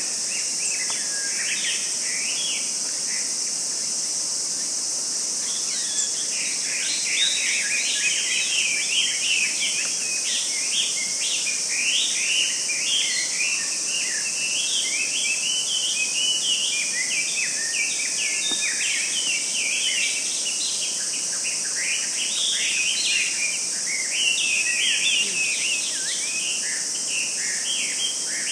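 Forest ambience: many small birds twitter and chirp in quick short notes, a few at first and a busy chatter from about six seconds in. Under them runs a steady high insect drone.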